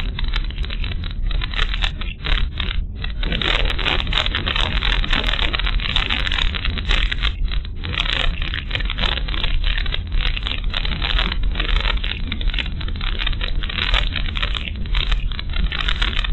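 Moving car heard from inside the cabin: a steady low engine and tyre rumble under a loud, uneven road-noise hiss that keeps flickering up and down.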